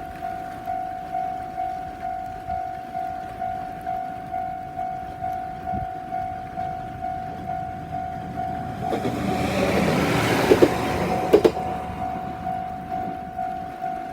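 Level-crossing warning bell ringing steadily, about two dings a second. About nine seconds in, a diesel railcar passes over the crossing for about three seconds, with two sharp clacks from its wheels on the rail joints, and the bell keeps ringing after it has gone.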